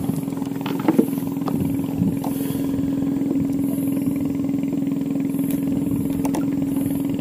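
Small boat engine running steadily at a constant idle, with a few light clicks and knocks, about a second in and near the end.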